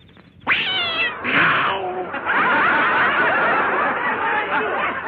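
A cat lets out a loud yowl about half a second in, falling in pitch, followed by a short hissing burst. Then a crowd breaks into laughter and chatter, all on a thin-sounding 1930s film soundtrack.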